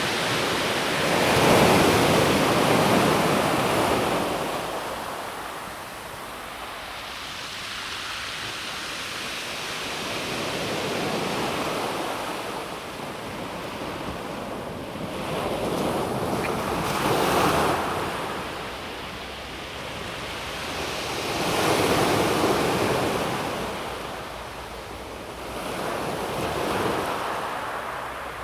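Calm sea waves breaking on a pebble beach, each wave swelling into a wash of surf and then fading, about every four to six seconds.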